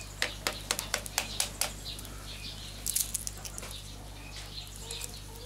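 Bug-eaten soft wood being crumbled and broken apart by hand: an irregular run of dry crackles and clicks, denser about three seconds in, as the wood turns to dust.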